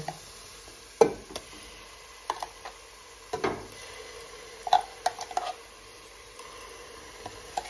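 A metal spoon scraping and knocking against a stainless-steel mixer-grinder jar as thick ground spice paste is scooped out and dropped into a pot of onions frying in oil. There are irregular clinks and scrapes, the sharpest about a second in and a quick run of them about five seconds in, over a faint steady sizzle of oil.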